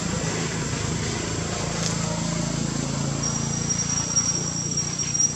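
Outdoor ambience: a steady low hum, with a thin high steady whine that joins about three seconds in.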